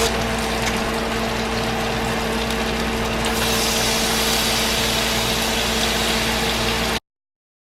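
Steady mechanical hum over an even hiss. The hiss grows brighter about three seconds in, and the sound cuts off abruptly near the end.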